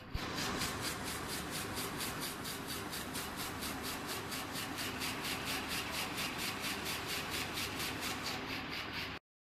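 Weaving loom running, a fast, even mechanical beat at one steady speed. The sound cuts off suddenly near the end.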